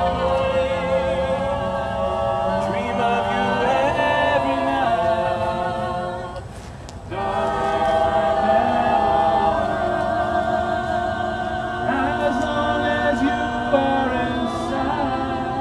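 High school choir singing a cappella in sustained harmony, with a brief break between phrases about seven seconds in.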